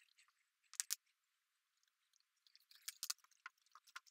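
Faint, scattered sticky clicks and crackles of wet metallic epoxy being worked on the floor: a short cluster about a second in, then more irregular clicks from past the middle.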